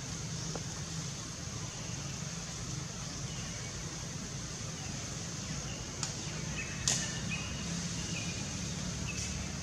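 Forest ambience: a steady high-pitched insect drone over a low rumble, with a few short chirps in the second half and two sharp clicks about six and seven seconds in.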